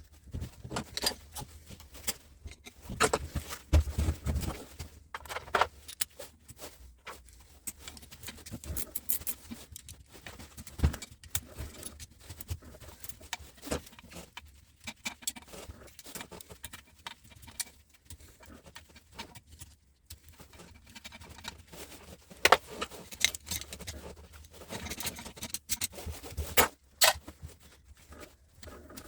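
Metal parts and hand tools clinking and clattering in irregular knocks and clicks as switchgear components are handled and taken apart.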